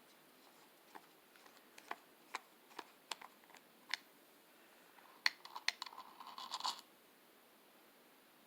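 Screwdriver working the grip screw of a Pietta 1858 New Model Army revolver: scattered light metal clicks and scrapes, then a quick flurry of clicks and scratching about five to seven seconds in.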